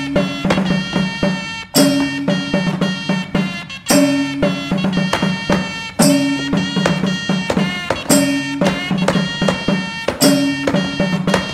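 Traditional folk-style instrumental music, a pitched melody over percussion, its phrase repeating about every two seconds with a sharp accent at each start.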